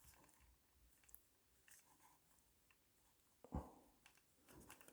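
Near silence with faint small clicks and rustles of handling, and one short knock about three and a half seconds in.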